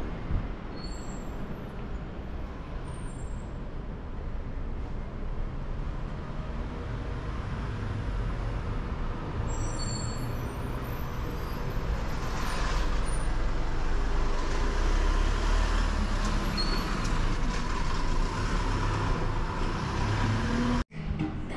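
Street traffic: a steady rumble of road vehicles that grows louder in the second half, with a few faint high squeaks, cutting off suddenly near the end.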